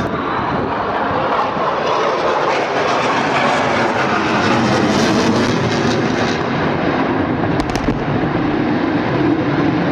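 Fighter jet's engine noise, a continuous loud rushing sound that swells slightly around the middle.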